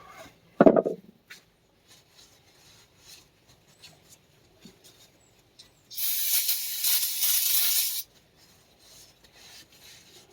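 Light scraping and rubbing as dirt is cleaned out of the tractor axle's seal grooves. There is a sharp knock under a second in, and a steady spray hiss lasting about two seconds starting about six seconds in.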